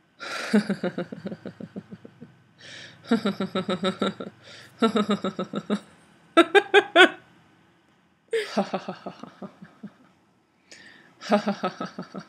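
A woman laughing deliberately as a laughter-yoga exercise: several bouts of quick, even ha-ha pulses with short breaths between them, one bout about halfway through higher pitched.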